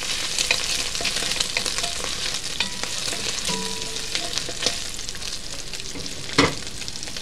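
Diced bacon sizzling and crackling in hot fat in an enamelled Dutch oven, stirred with a wooden spoon. A single knock about six seconds in.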